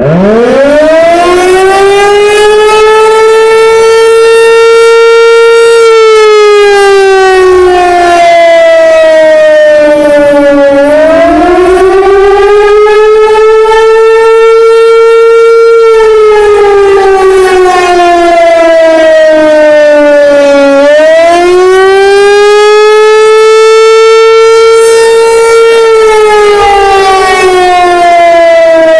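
American Signal T-128 outdoor warning siren sounding an attack signal, loud. It winds up from a standstill to a steady high tone, then sags in pitch and winds back up. The hold and sag repeat three times, and the pitch falls again near the end.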